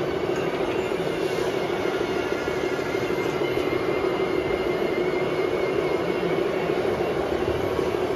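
Radio-controlled scale model construction machines running: a steady engine-like drone with a faint high whine over it.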